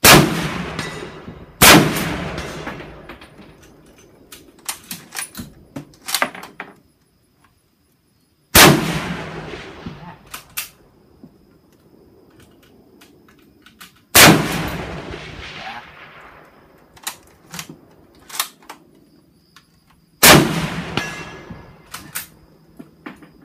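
Five loud rifle shots, each trailing off over a couple of seconds: two about a second and a half apart at the start, then one roughly every six seconds. Short sharp clicks and clacks come between the shots.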